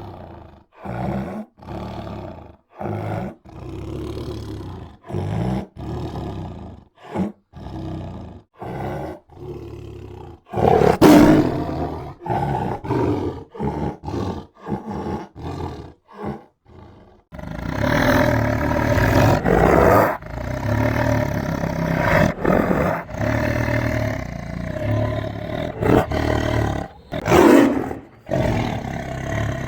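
Tiger roaring and growling: a quick series of short roars with brief gaps, then, about halfway through, nearly unbroken growling roars with a few louder peaks.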